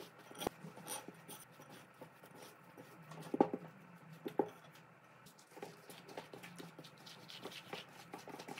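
Hands kneading soft yeast dough: quiet rubbing and pressing, with scattered light taps and two sharper knocks about three and a half and four and a half seconds in.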